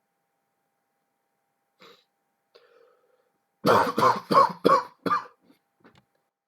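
A person coughing: a quick run of five coughs about three and a half seconds in, each a short hard burst.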